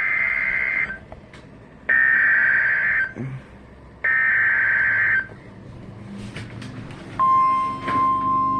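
Emergency Alert System SAME header on NOAA Weather Radio: three one-second bursts of buzzing digital data tones about a second apart. About seven seconds in, the steady single-pitch warning alarm tone begins; here it signals a severe thunderstorm warning.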